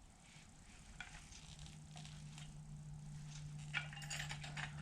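Faint handling sounds: a few light clicks and rustles as a heavy 1-inch drive Plumb ratchet is handled and set on a scale for weighing. A steady low hum comes in about a second and a half in.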